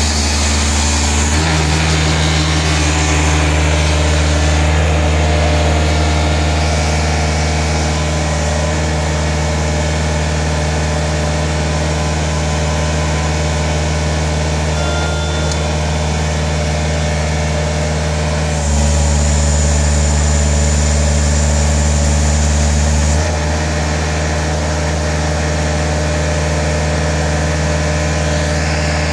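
PowerBoss Armadillo 10X ride-on industrial sweeper's engine running steadily while its hopper is raised and lowered, with a louder, deeper stretch of about four seconds about two thirds of the way through.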